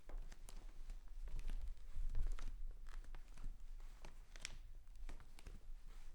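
Bare feet walking: soft low thuds with light slaps and clicks of skin at an uneven pace.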